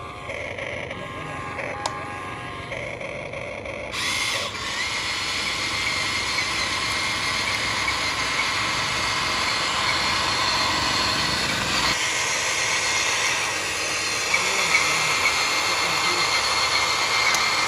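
Electric motors and gearboxes of a Huina radio-controlled toy excavator whirring steadily as it drives and works its arm, with a high whine. The whirring gets louder about four seconds in.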